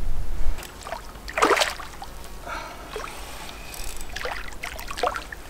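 A hooked cutbow trout splashing and thrashing at the surface of shallow lake water near the shore: a series of short splashes, the loudest about one and a half seconds in.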